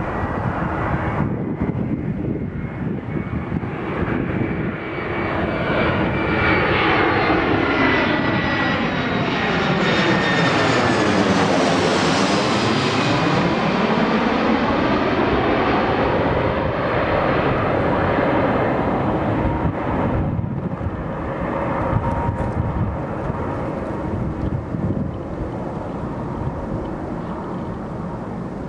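Airbus A320-200 jet airliner on final approach passing low overhead. Its engine noise builds, is loudest as it passes over about twelve seconds in, with a high whine that drops in pitch and a swooshing sweep, then fades as it flies on toward the runway.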